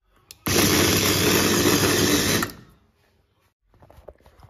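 Telefunken electric mini chopper running loudly for about two seconds as it blends rusks with milk. It starts about half a second in and cuts off suddenly.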